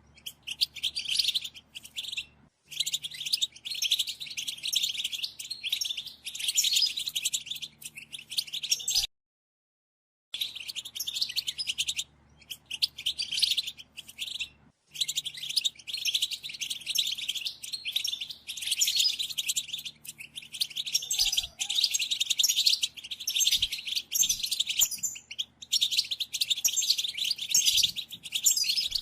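European goldfinch singing its fast, continuous twittering song in long phrases with brief pauses. The song cuts off to complete silence for about a second some nine seconds in.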